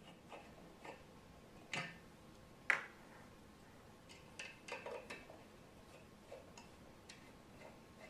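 Phillips screwdriver working the small screws out of a fan's motor mount: faint, sharp metallic clicks of tip and screw, the loudest two about two and three seconds in and a quick cluster around five seconds.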